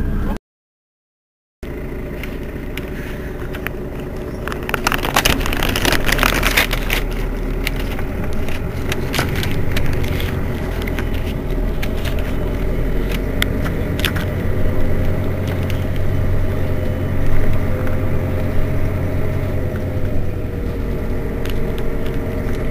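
Mercedes-Benz Citaro city bus engine running with a steady low hum. The sound cuts out for about a second near the start, and a louder stretch of hiss and rattle comes about five to seven seconds in.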